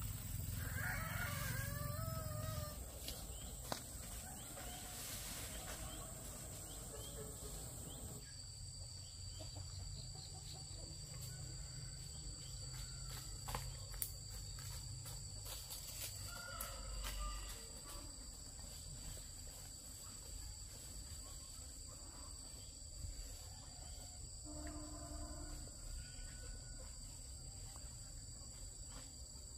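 Chickens calling a few times, near the start, around the middle and near the end, over a steady high-pitched whine.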